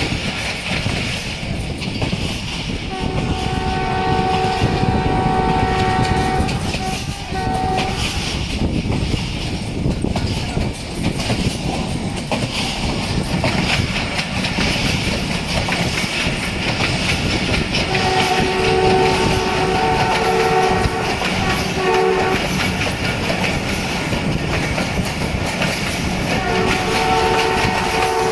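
ZCU-20 diesel locomotive's multi-tone horn sounding a chord three times: for about four seconds a few seconds in, again for about four seconds past the middle, and once more near the end. Under it is the steady rumble and clatter of the train running on the track.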